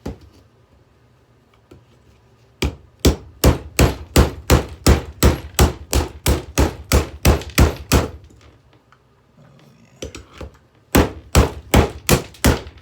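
A hammer repeatedly striking a hair dryer, about three blows a second in a long run, then after a pause a few lighter taps and a second quick run of blows near the end.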